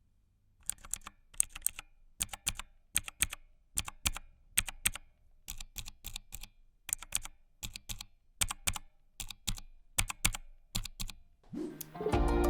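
Keys being typed on a ZET Blade mechanical keyboard with clicky Kailh Blue switches: sharp, bright clicks at an uneven pace, many coming as quick pairs. Music comes in near the end.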